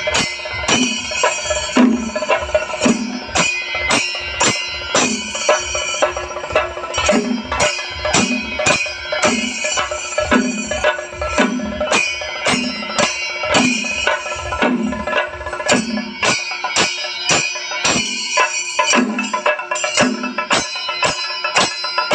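Traditional Kerala temple percussion: drums beaten in a fast, dense rhythm over ringing cymbals, with a heavier stroke falling about once a second.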